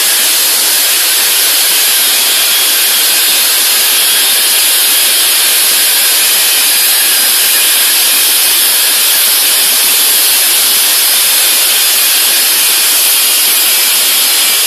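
Plasma torch on a CNC cutting machine marking a steel plate: a loud, steady hiss of the arc and its gas flow.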